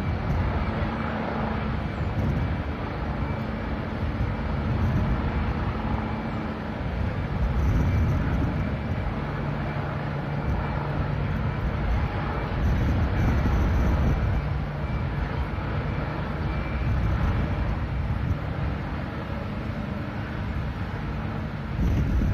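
Steady low rumble of outdoor street noise, with faint engine-like hums that come and go.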